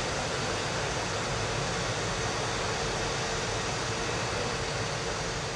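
Hydraulic cargo lift lowering its platform: a steady hiss with a faint, even hum.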